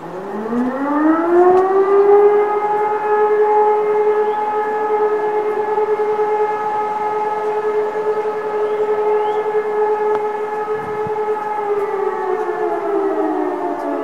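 E57 electromechanical civil-defence motor siren sounding a test alarm. It winds up in pitch over about two seconds, holds a steady wail of several tones at once, and starts to wind down near the end.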